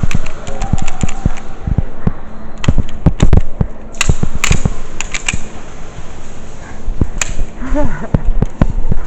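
Airsoft guns firing: irregular sharp snaps, several in quick runs, over handling and movement noise, with a brief voice about eight seconds in.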